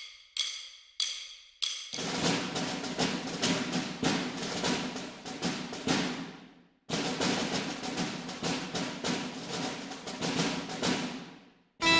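Percussion-driven outro music. It opens with four short ringing hits about half a second apart, then fast, dense drumming that breaks off briefly about seven seconds in and fades out near the end.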